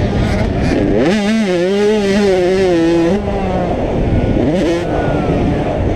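Motocross bike engine revving hard: it climbs about a second in, holds for about two seconds with a wavering pitch, then drops off, with another short rev near the five-second mark.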